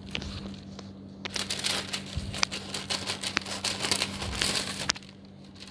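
A sheet of baking paper crinkling and rustling as it is pulled out flat and cut with scissors, with a few sharp snips and crackles.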